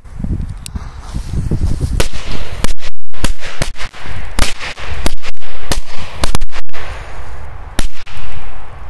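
A string of small firecrackers going off one after another, about a dozen sharp, loud bangs at uneven intervals starting about two seconds in.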